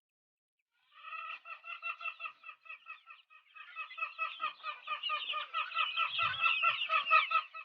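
Chickens clucking in a fast run of short, repeated calls, getting busier and louder from about halfway through.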